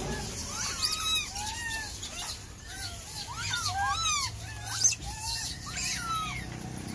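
Monkeys calling: many short, overlapping squeaky calls that rise and fall in pitch, with a sharp knock about five seconds in.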